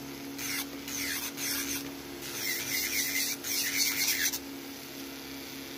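Electric nail file (e-file) running with a steady hum, its bit grinding on acrylic nail in several short passes that stop about four seconds in.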